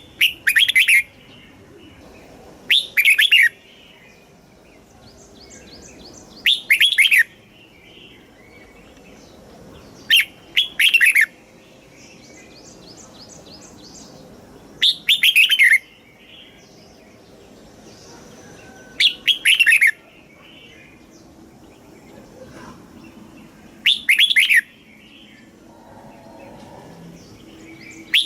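Red-whiskered bulbul singing: short, loud song phrases, each a quick doubled burst of about a second, repeated every three to five seconds. Fainter twittering can be heard between the phrases.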